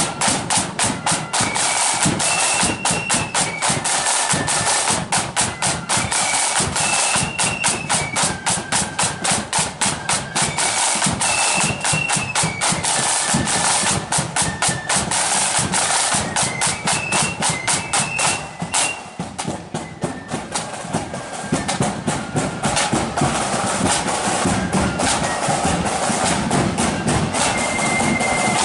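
Marching flute band playing a tune: flutes carry a high melody over rapid snare drumming and bass drum beats. The drumming thins out briefly about two-thirds of the way through.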